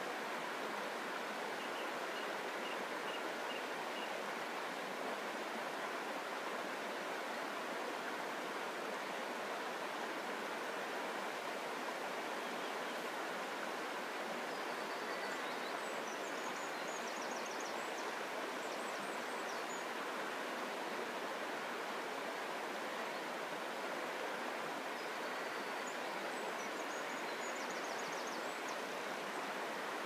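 Shallow river flowing steadily over stones and around stepping stones, a constant rushing of water. Faint high birdsong of the dawn chorus comes through over it a few times, most clearly about halfway and near the end.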